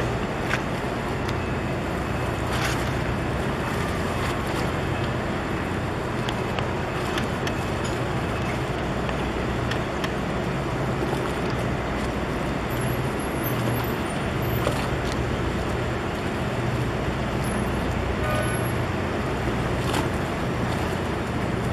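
Boat engine running steadily with a low drone, over an even wash of water and wind noise.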